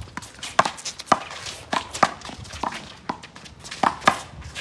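Small rubber handball slapped by gloved hands and smacking off the wall and court during a fast one-wall handball rally: a string of sharp slaps, roughly two a second.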